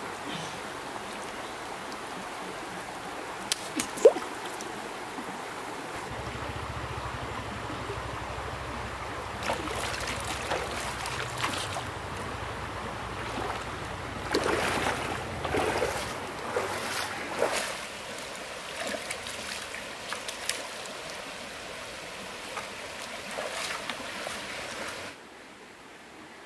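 Shallow stream running over rocks, with splashing as food is swished and rinsed in the water; the splashes come thickest through the middle. The water sound drops away abruptly near the end.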